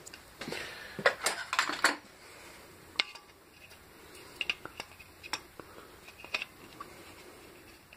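Diagonal side cutters snipping and clicking against an electrical switch's metal parts: a quick run of sharp clicks in the first two seconds, then single snips and clinks every second or so.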